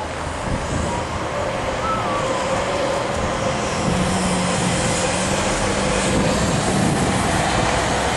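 Highway traffic going by: a steady rush of tyre and engine noise, with one vehicle's engine hum standing out for a few seconds around the middle.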